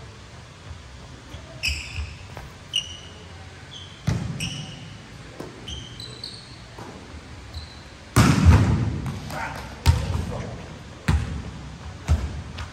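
Volleyballs being spiked and bouncing on a gym floor, echoing in the hall: a loud smack about eight seconds in, with sharper knocks before and after it. Short squeaks of shoes on the court floor come in the first half.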